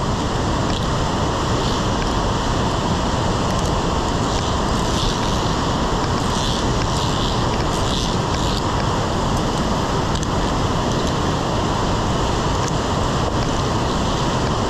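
Steady rushing roar of a river running through the rocky gorge below, even and unbroken.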